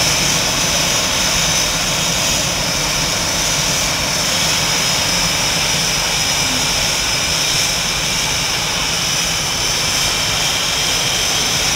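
F/A-18 Hornet jet engines running steadily at idle: a continuous rushing roar with a high turbine whine held at a constant pitch.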